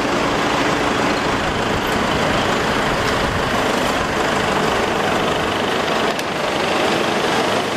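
Steady motor-vehicle noise: an engine running with a constant rumble and hiss of road or traffic noise.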